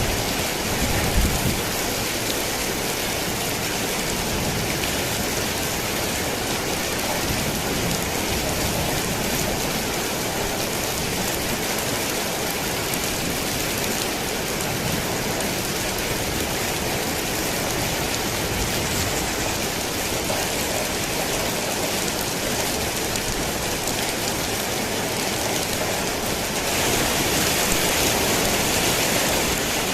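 Steady heavy rain pattering on a tin roof, with a brief low rumble of thunder about a second in. The rain grows louder and hissier near the end.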